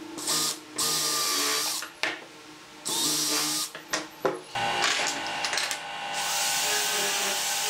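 Cordless drill driving screws into pine boards in several short bursts of motor whine with pauses between. About four and a half seconds in, a corded electric disc sander starts and then runs steadily.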